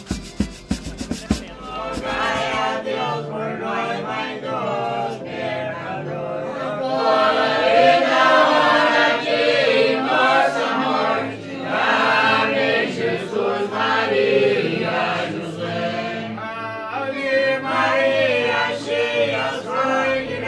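A group of voices singing a song together, starting about two seconds in after a few sharp clicks.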